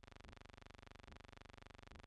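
Near silence: a faint steady hum with a soft low blip a little under once a second.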